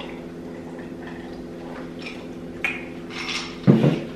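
Quiet eating and drinking sounds over a steady low hum, with a sharp click partway through and a louder knock near the end as a stemmed drinking glass is set down on the table.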